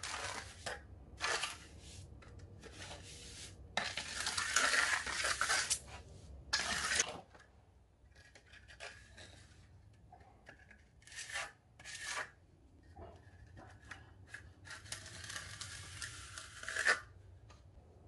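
Steel trowel scraping and working wet mortar in irregular strokes, with two longer scrapes about four seconds in and near the end.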